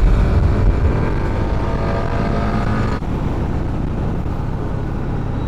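Bajaj Pulsar RS 200's single-cylinder engine running at road speed, mixed with steady wind rush on the rider's microphone. The sound drops briefly about three seconds in.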